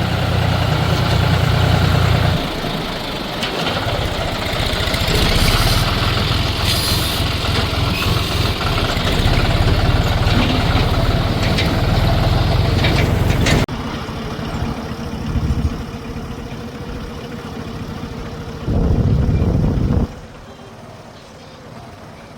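John Deere 5310 tractor's three-cylinder diesel engine running under way, a dense, loud engine rumble with rattle and noise. About two-thirds through it cuts abruptly to a quieter engine sound with a steady hum, briefly louder again near the end.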